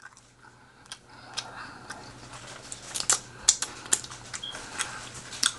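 Close-up eating noises: irregular soft clicks and smacks of chewing, about a dozen over several seconds, over a faint steady low hum.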